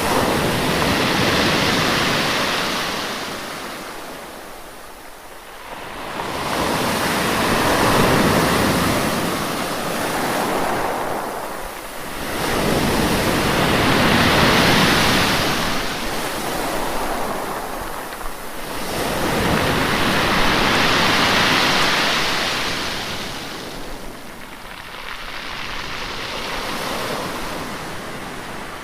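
Sea waves breaking and washing up the shore, in about five surges that swell and fall back roughly every six seconds.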